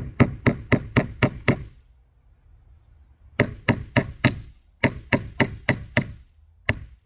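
Claw hammer striking in quick runs of blows, about four a second, pausing for about a second and a half around two seconds in before starting again.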